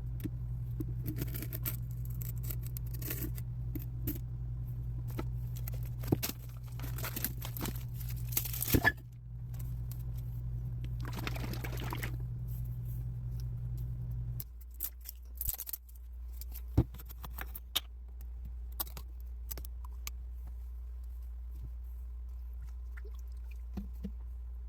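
Kitchen food-prep handling sounds: crinkling and tearing of packaging, scattered clicks and knocks, and a brief pouring or running sound, over a steady low hum that changes about halfway through.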